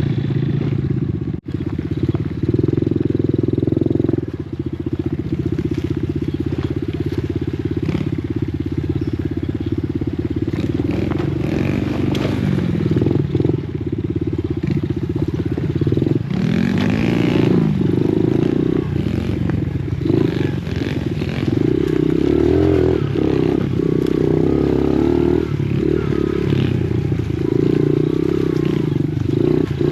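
Dirt bike engine running, its pitch rising and falling with the throttle.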